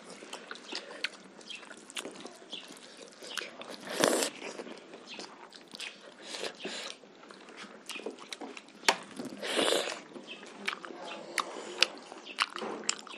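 Close-miked eating sounds: mouths chewing pork curry and rice eaten by hand, with many sharp wet clicks and smacks, and two longer, louder wet sounds about four and nine and a half seconds in.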